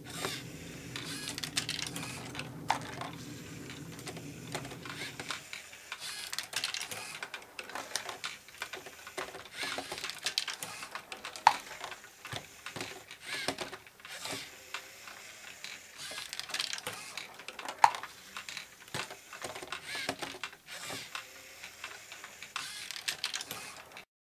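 LEGO Great Ball Contraption module running: a busy, irregular clatter of plastic LEGO parts and small plastic balls clicking and rattling. For the first five seconds or so a LEGO EV3 motor turning a crank arm hums underneath; two sharper, louder clacks stand out, one about halfway through and one about three quarters of the way in.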